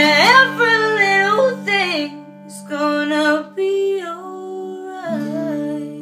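A woman singing the closing phrases of a reggae song over an acoustic guitar. A final chord is struck about five seconds in and left ringing as the voice stops.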